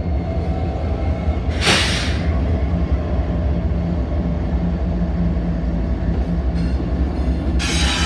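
Union Pacific diesel-electric locomotives, a new SD70AH and a GE C45ACCTE, passing at close range: a steady deep engine rumble with a hum, a short loud hiss about two seconds in, and a louder, brighter hiss with high squealing tones setting in just before the end as the next unit draws alongside.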